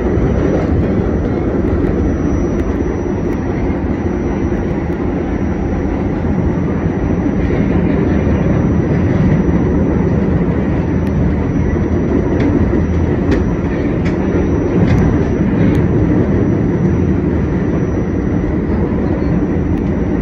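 New York City subway train running at speed, heard from inside the front car: a steady rumble of wheels on rails and running gear, with a few sharp clicks about midway.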